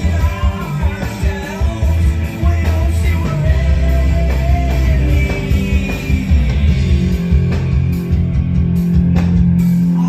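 Live rock band playing loud through a festival PA: distorted electric guitars, bass and drums, with singing over the first part. In the last few seconds a low note is held steady under the band.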